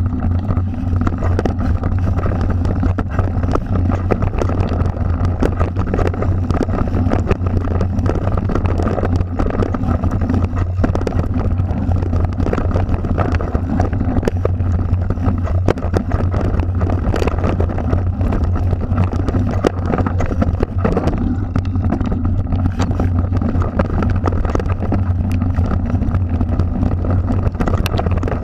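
Mountain bike riding down a rough dirt singletrack, heard through a bike-mounted action camera: a steady low wind rumble on the microphone with constant rattling and clatter from the bike and camera mount over the bumps.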